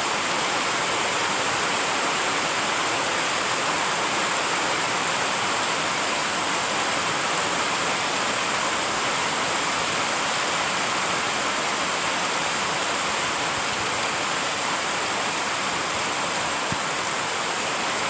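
Heavy rain pouring steadily: a dense, even hiss that does not let up.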